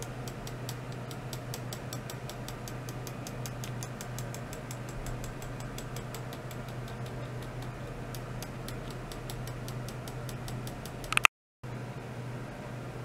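Ultrasonic test rig running: a steady electrical hum and hiss with a fast, even ticking of about five clicks a second. The ticking stops about eleven seconds in, with a short louder click and a moment of silence.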